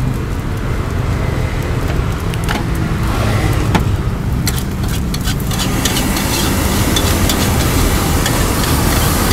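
Fried rice being stir-fried in a steel wok, a metal spatula scraping and knocking against the pan, busier from about halfway through, over a steady low rumble.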